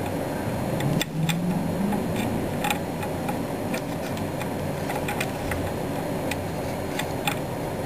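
Irregular light clicks and taps of fingers handling a plastic scale-model engine while fitting a rubber fan belt over its pulleys, about a dozen in all, over a steady low background rumble.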